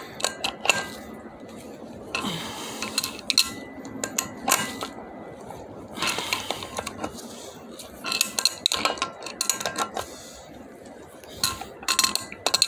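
Steel wrenches clinking and clicking against the nut, bolt and washers of a bearing puller as the nut is cranked down in strokes. Each stroke gives a short cluster of metal clicks, repeating about every two seconds. The puller is drawing a failed bearing out of a heated aluminium motorcycle wheel.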